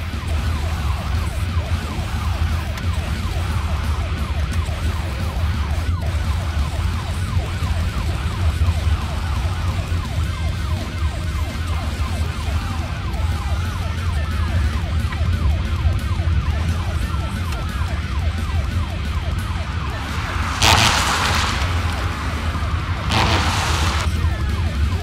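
Siren wailing up and down over a steady low rumble of a car driving on the road, with two loud rushing whooshes near the end.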